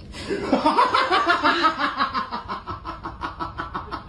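A person laughing in a long run of quick, rhythmic laughs that fade toward the end.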